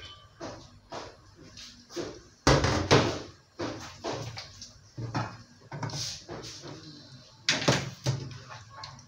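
Irregular knocks and clatter, with two louder bangs about two and a half seconds in and again about seven and a half seconds in.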